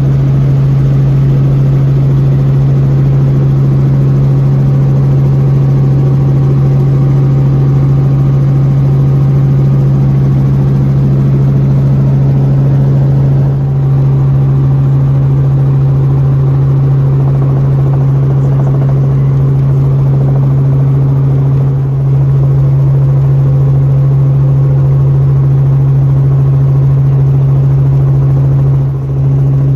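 Small helicopter in flight, heard from inside the cabin: a loud, steady drone of engine and rotors with a strong low hum.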